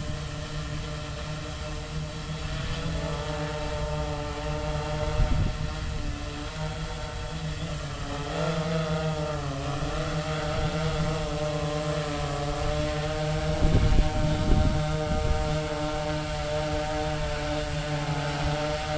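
Sky-Hero Spyder 6 hexacopter hovering low: its six T-Motor MN 4120 motors spinning 16-inch APC propellers give a steady drone of several tones, which wavers and dips in pitch about eight to ten seconds in. A few low thumps of wind on the microphone, around five and fourteen seconds in.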